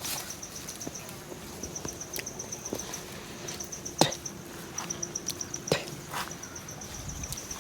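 An insect calling in trains of rapid, high-pitched chirps that repeat every second or so, with scattered sharp snaps and clicks like twigs and leaf litter underfoot.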